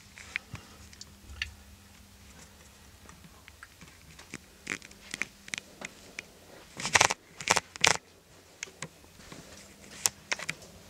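Scattered light clicks and knocks from someone moving about a small room while handling the camera, with a louder cluster of knocks about seven to eight seconds in, over a faint steady hum.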